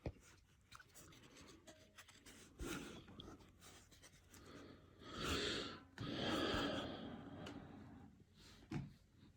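Faint handling of trading cards: a few soft clicks and taps, and a longer papery sliding rustle from about five to eight seconds in.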